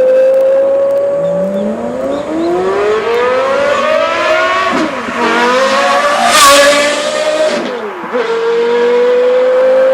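Porsche Carrera GT's 5.7-litre V10 on a Kreissieg aftermarket exhaust, running at high revs with the pitch climbing under acceleration. It drops sharply twice, about five and eight seconds in, as it shifts up. A loud rushing burst comes about six and a half seconds in.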